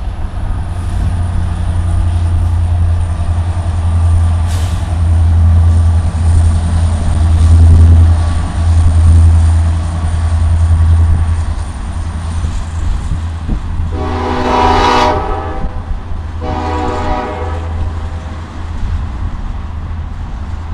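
Norfolk Southern freight train passing close by: the diesel locomotive's heavy engine rumble, loudest in the first half, then two locomotive horn blasts of about a second each, a little over a second apart, as the tank cars roll past.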